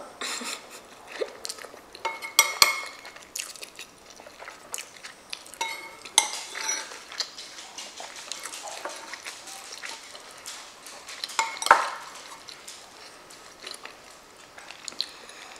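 Close-miked chewing and wet mouth smacking of a mouthful of lasagna, with a metal spoon clinking and scraping against the bowl several times, the loudest clinks a few seconds in and about two-thirds of the way through.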